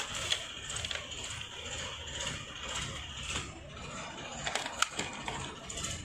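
A cardboard box and its moulded plastic insert tray being handled and pulled apart while unboxing: irregular rustling and scraping, with a sharp click near the end.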